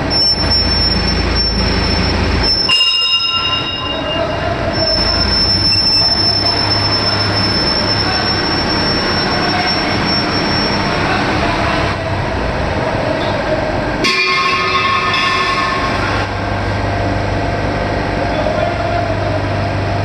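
Loud, steady machinery noise with high-pitched metallic squealing. A shrill whistle comes and goes, short bursts of squeal sound about three and fourteen seconds in, and a low hum swells in the last few seconds.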